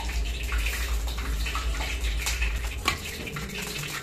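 Paneer cubes frying in hot oil in a metal kadai, a steady sizzle, with a metal skimmer clinking against the pan a few times. A low hum underneath cuts off about three seconds in.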